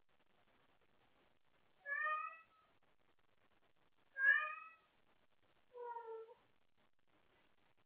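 Domestic cat meowing three times, each call drawn out for about half a second and spaced about two seconds apart, the last one lower in pitch: calling out for someone to play with.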